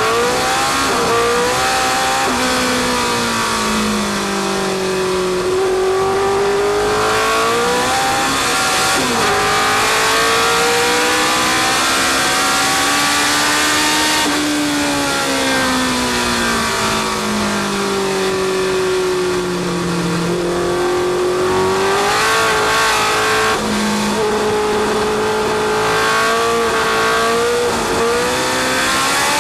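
Historic sports racing car's engine heard from on board, pulling hard with its pitch climbing and stepping down at each upshift as the car accelerates, then falling away as the car lifts off and slows.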